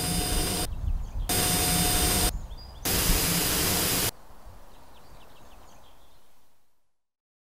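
TV static: three loud bursts of hissing white noise with a steady whine running through them, each cut off abruptly. A faint background follows and fades out to silence.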